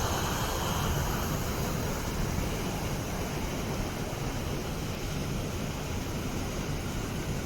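Waterfall rushing steadily: a continuous roar of falling water heard from above the falls.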